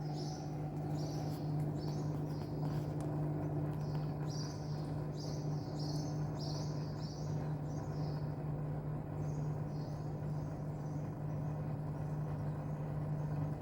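LG direct-drive front-load washing machine running a spin-only cycle, giving a steady hum that is mostly the drain pump, with no rubbing noise now that the faulty Hall sensor has been fixed. Small birds chirp repeatedly over it, about twice a second.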